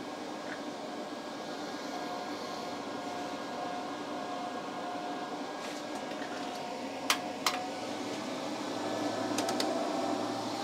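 TOPBULL 3000 W inverter's cooling fans running steadily under a near-full load of about 2,860 W, with a faint thin whine. Two sharp clicks come about seven seconds in, and the hum grows a little louder near the end.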